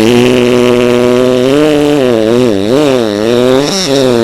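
Long, loud buzzy fart sound. Its pitch holds steady at first, wobbles up and down several times through the middle, then levels out again.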